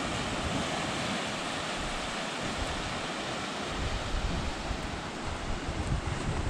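Small ocean waves washing onto a flat beach, with wind buffeting the microphone in gusts that grow stronger in the second half.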